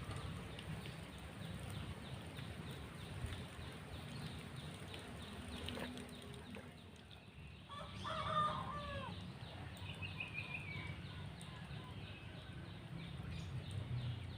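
A chicken calling, loudest about eight seconds in with a short bending call and a fainter one just after, over steady low outdoor background noise.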